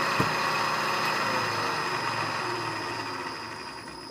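Milling machine spindle running with an eighth-inch end mill taking a light cleanup cut on a steel tool blank: a steady motor noise with a thin high whine. A single click sounds shortly after the start, and the noise fades over the last second.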